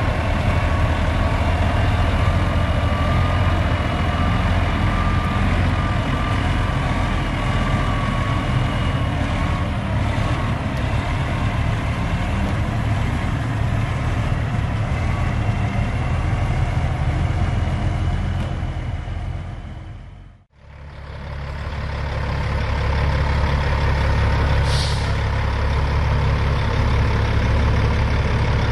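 Big-rig diesel engine running as a Kenworth W900 semi with a trailer rolls slowly by, a thin wavering whine over it for the first ten seconds or so. The sound fades out and back in about twenty seconds in, and a second semi's diesel then idles with a deeper rumble, with one short hiss a few seconds later.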